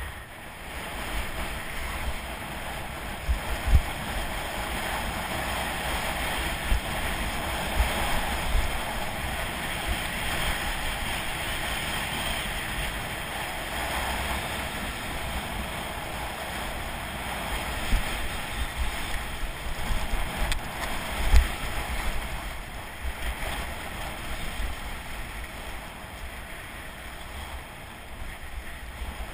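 Skis sliding and scraping over packed snow with a steady hiss, while wind buffets the action camera's microphone in low rumbles. A few sharper thumps come through, the loudest about twenty seconds in.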